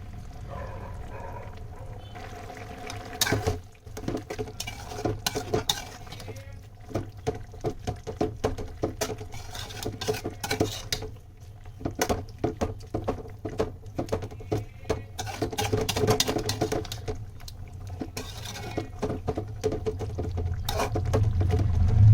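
Metal cooking utensils clinking, knocking and scraping against a pot or pan in irregular, rapid strokes, over a steady low hum.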